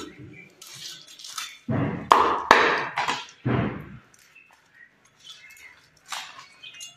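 Cleaver chopping through grilled chicken on a wooden chopping board: several heavy chops in quick succession about two seconds in, then quieter cutting and a single lighter knock near the end.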